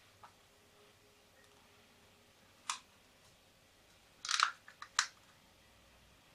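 Plastic paint cups being handled and knocked together: one sharp tap a little before halfway, then a quick run of three or four clicks and taps past the middle, over quiet room tone.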